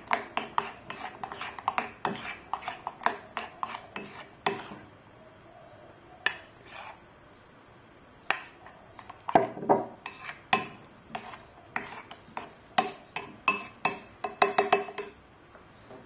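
Metal spoon stirring a thick batter in a ceramic bowl, clinking against the bowl in a quick run of taps. The taps stop for a few seconds in the middle, then come again more irregularly.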